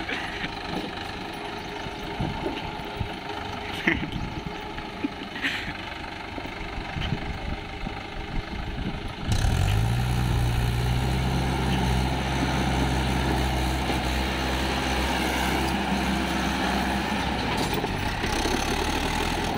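Swaraj 843 XM tractor's diesel engine running as it pulls a loaded trolley through deep mud. About nine seconds in, the engine suddenly becomes much louder, a steady deep note.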